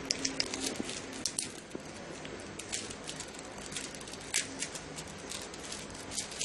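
Rubik's cube being turned fast by hand: irregular quick plastic clicks and rattles as the layers snap round, over a steady low hum.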